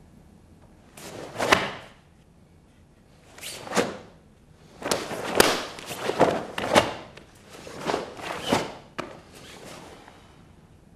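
Karate uniforms swishing and snapping in quick bursts, with sharp slaps and thuds from blocks, strikes and foot stamps. A longer run of several rapid hits comes about five to seven seconds in.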